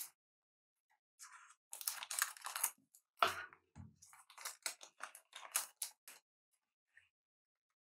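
Foil wrapper of a trading-card pack being torn open and crinkled: a run of short crackling rustles that stops about six seconds in.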